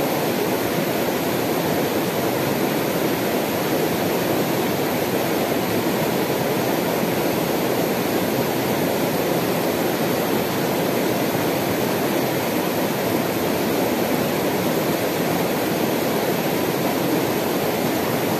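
Shallow mountain river rushing over rocks: a steady, unbroken rush of water.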